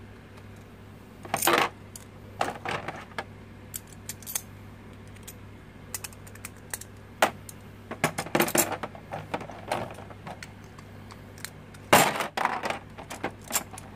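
Infinity Nado spinning-top parts, plastic attack rings and metal rings, clicking and clattering as they are taken apart, fitted together and set down in a plastic arena bowl. There are several short rattles, the loudest about a second and a half in and again about twelve seconds in.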